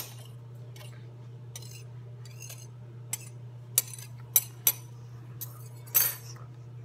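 Metal cutlery clinking and tapping against a hard stone countertop in scattered sharp clicks, about nine in all, the loudest knock coming about six seconds in.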